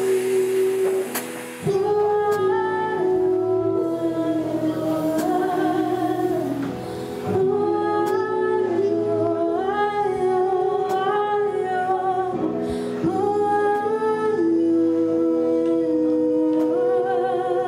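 A woman singing a Setswana folk-song melody into a microphone, with a live band: trumpet and double bass.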